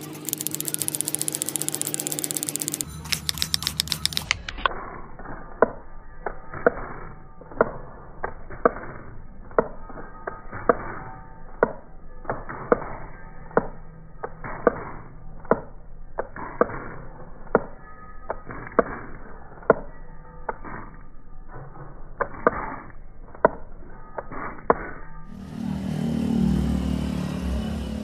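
Trigger spray bottle squirting cleaner in a quick run of hissing sprays at the start. Then muffled background music with a sharp tick about once a second, and a low rumble near the end.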